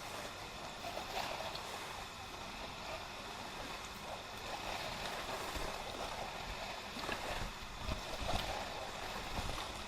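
Steady riverside outdoor ambience: an even rush of wind and water, with a few low gusts on the microphone late on.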